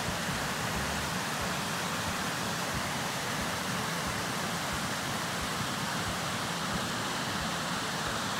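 A small stream rushing and cascading over rocks: a steady, even rush of water.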